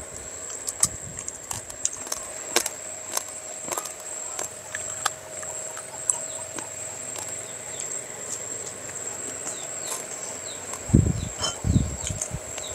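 Eating sounds close to the microphone: many small wet clicks and smacks of chewing and fingers working rice on plates, with a cluster of heavier chewing sounds near the end. A steady high-pitched whine runs behind throughout.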